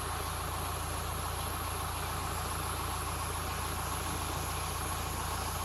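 Mahindra Thar's engine idling steadily.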